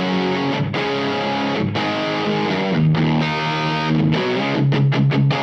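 Humbucker-equipped electric guitar played through an LPD Pedals Sixty8 drive pedal: overdriven chords held and changed about once a second, heavy in the bass, which the player finds a bit too much for the humbuckers.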